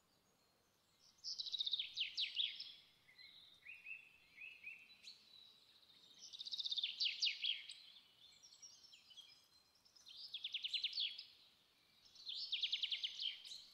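A bird singing a fast trilled phrase four times, roughly every three to four seconds, with softer chirps between the phrases.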